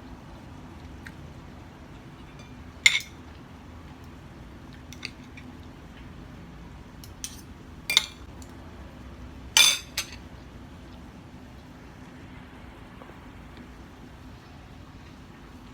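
Cutlery clinking and scraping against a plate during a meal: a handful of short sharp clinks spread out, the loudest pair about ten seconds in, over a faint steady hum.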